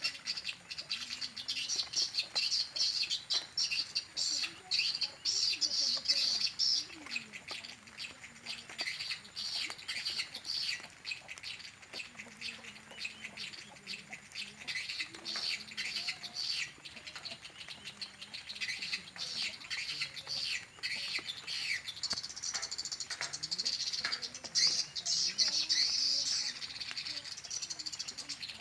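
Recorded swiftlet calls played as a lure to draw swiftlets into a nesting house: dense, rapid, high twittering chirps, louder near the start and again toward the end.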